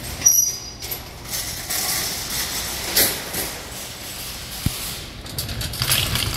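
Metal shopping carts clanking as one is pulled free from a nested row, then rattling as it is pushed along the floor, with a sharp clank about a third of a second in and a few more knocks later.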